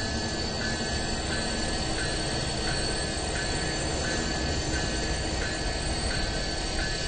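A steady mechanical rumble with high, steady whining tones over it and faint regular ticks, about one every 0.7 seconds.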